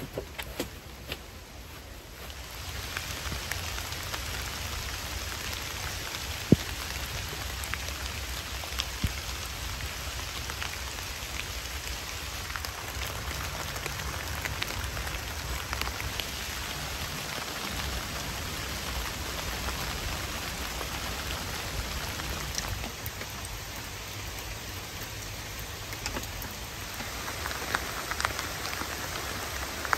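Steady rain falling on the forest floor, with single drops now and then tapping loudly. A couple of knocks come in the first second, before the rain sets in.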